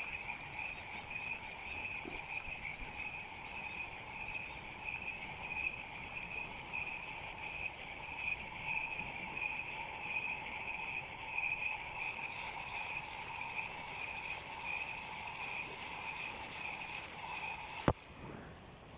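Spinning fishing reel cranked close to the microphone, a steady, slightly pulsing whir from its gears and rotor. A sharp click comes about a second before the end, and the whirring stops with it.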